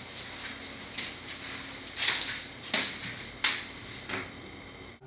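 Footsteps of shoes on a hard floor: a few sharp steps about two thirds of a second apart, the loudest in the second half, over a steady low room hum.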